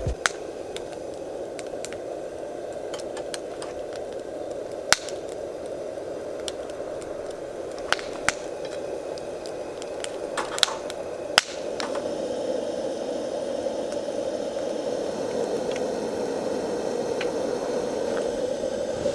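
Open wood campfire burning with a steady rushing noise and sharp crackles and pops of the burning wood, a handful of them spread through the first part; the steady fire noise grows a little louder after about eleven seconds.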